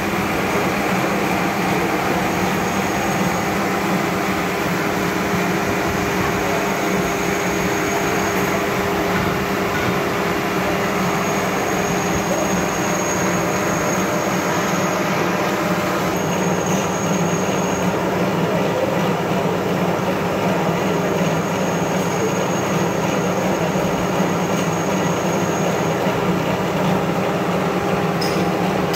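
Gear hobbing machine running steadily as its hob cuts teeth into a cast iron worm wheel blank: a continuous machine hum with a faint high whine that comes and goes. A few sharp clicks near the end.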